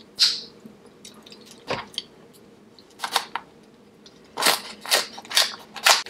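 Close-miked eating of saucy seafood: a series of sharp, wet smacks and crunches, spaced a second or more apart at first, then four in quick succession near the end.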